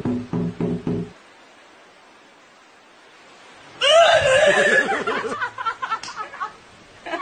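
A rhythmic burst of laughter for about the first second, then a stretch of low hiss. About four seconds in comes a loud, wavering shriek, which breaks into laughter and fades.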